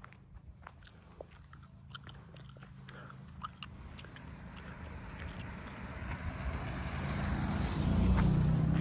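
A car passing close by: engine hum and tyre noise build steadily and peak near the end. Scattered small crunching clicks run throughout.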